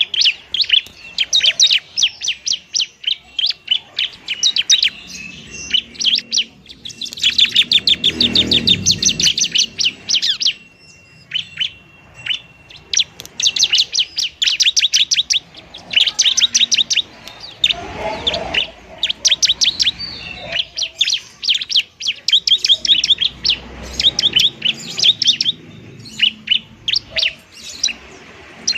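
Bar-winged prinia (ciblek) singing its fast fighting song: long runs of rapid, sharp, high chirps with only brief pauses, and a thin steady whistle partway through. A few low rumbles sound under the song.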